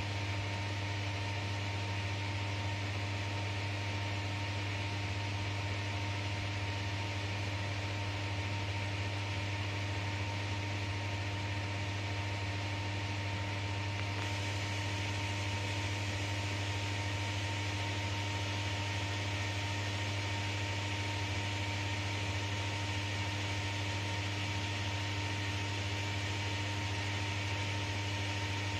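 Steady low electrical hum inside an enclosed Ferris wheel cabin, with fainter steady higher tones and an even hiss over it.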